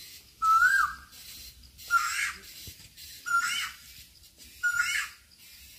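A short whistle-like call, repeated four times about every 1.3 seconds. Each call is a brief steady note followed by a quick rise and fall in pitch.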